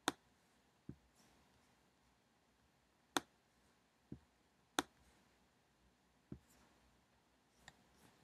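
Computer mouse clicks: three sharp clicks and several softer, duller ones, spaced a second or more apart.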